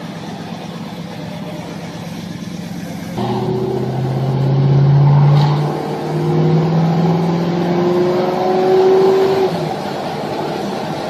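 A classic Ford Ranchero's engine, running steadily and then, about three seconds in, accelerating hard: the pitch climbs, drops back briefly, climbs again and eases off near the end.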